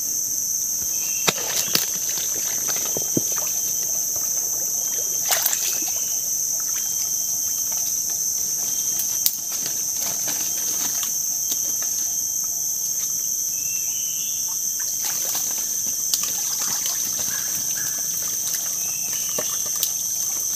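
Steady, high-pitched insect chorus, with a few sharp knocks and splashes of someone wading through shallow water.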